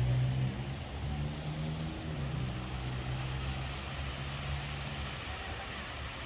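Car engine running with a low hum whose pitch shifts a few times; the hum fades out about five seconds in, leaving a steady background noise.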